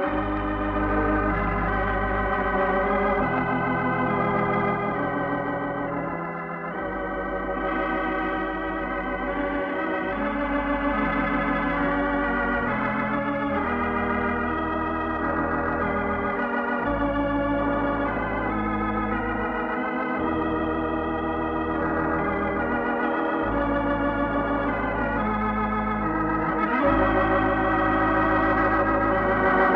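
Organ playing a radio programme's closing theme: sustained chords over a deep pedal bass, with the chords and bass notes changing every few seconds. It swells a little louder near the end.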